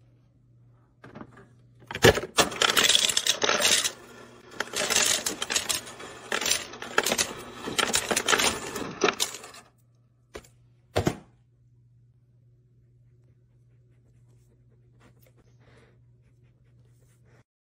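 Refrigerator door ice dispenser set to cubes, dropping ice into a plastic cup: a dense clatter of cubes for about eight seconds, then two short clicks.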